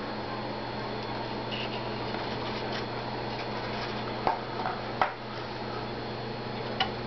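Steady low hum with a faint even hiss, broken by a few light clicks or taps about four and five seconds in and again near the end.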